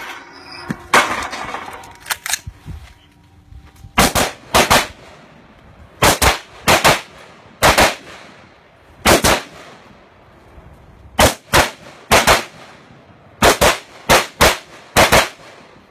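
Rifle shots from an AR-style carbine, fired mostly as quick double taps: pairs of sharp shots every second or two, with a few single shots between them.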